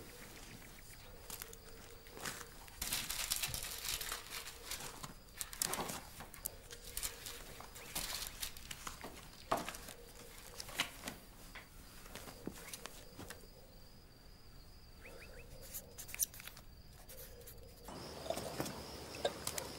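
Stiff pages of a photo album being turned and handled, soft paper rustles every second or two over a faint steady hum.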